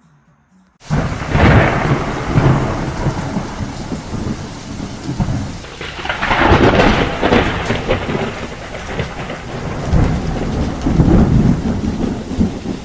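Thunderstorm: steady heavy rain with rolling thunder. It starts suddenly about a second in, and the thunder swells up three times.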